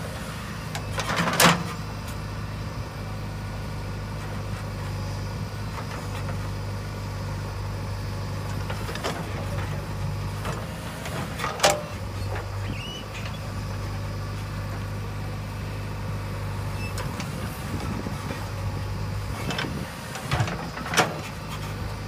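JCB 3DX backhoe loader's diesel engine running steadily under hydraulic load while the rear bucket digs soil. A few sharp metallic clanks from the bucket and boom come about a second in, near the middle, and twice close together near the end.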